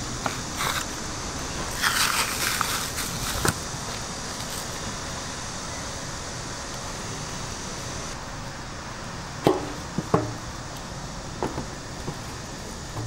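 Gloved hands handling raw pork rib racks in a stainless steel tray: a couple of seconds of wet rustling and crackling about two seconds in, then two sharp knocks a little over halfway through and a few lighter clicks, over a steady hum of street traffic.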